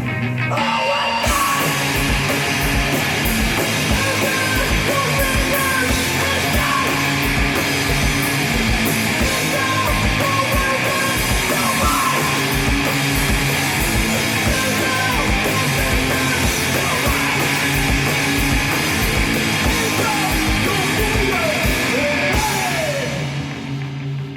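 Live rock band playing loud and fast, with drums pounding a steady beat under a wash of cymbals. Near the end the drums and cymbals stop, leaving a guitar ringing on.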